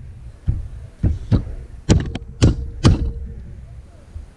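A plastic-faced mallet lightly tapping an 11 mm socket to seat a valve stem seal onto the valve guide of an LS cylinder head: about seven short knocks in the first three seconds, over a low hum.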